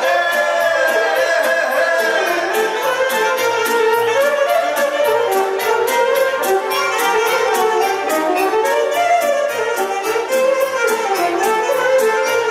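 Live band playing a Romanian folk dance tune: a violin leads the melody over a steady beat of about four ticks a second.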